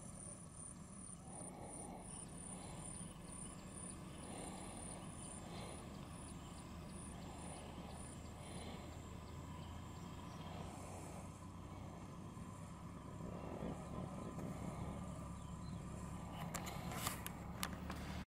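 Cricket chirping in a steady high pulse about twice a second, stopping about halfway through, over a low steady hum. A few sharp clicks near the end.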